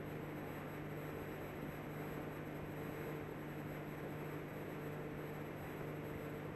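Steady hiss and low hum of an old live recording, with faint pitched tones drifting in and out.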